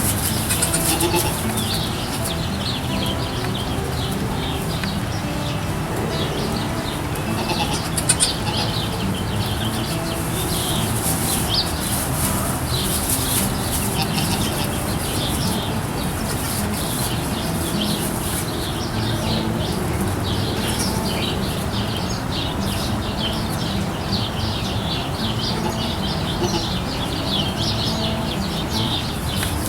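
Barn ambience: many small birds chirping busily and without pause over a steady low hum, with a few brief knocks.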